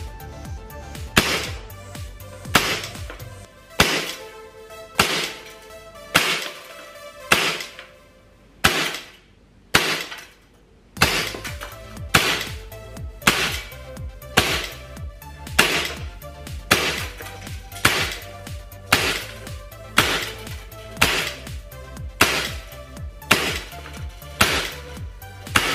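CO2-powered airsoft gun fired shot after shot, about twenty sharp reports roughly one a second, emptying a magazine, over background music.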